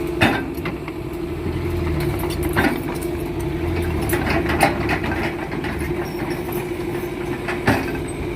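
Excavator's diesel engine running steadily, with several sharp knocks spread across it.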